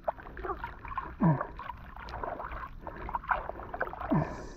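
Shallow lake water sloshing and gurgling in irregular small movements, with light splashes as freshly released tilapia stir in it.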